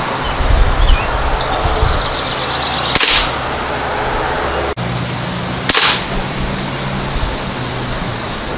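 Two shots from an Umarex NXG multi-pump pneumatic pellet rifle, each a short sharp crack, about three seconds apart, over a steady background hiss.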